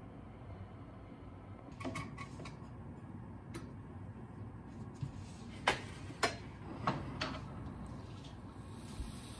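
Aluminium Bialetti Moka Express heating on a gas flame as coffee begins to rise through the spout into the top chamber: a low steady hiss with scattered sharp ticks and pops, several of them in quick pairs.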